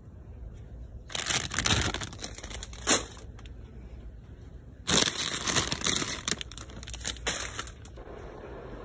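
Crinkling and crackling of plastic chip bags being handled, in two bouts: one about a second in with a sharp crack just after, and a longer one starting about five seconds in.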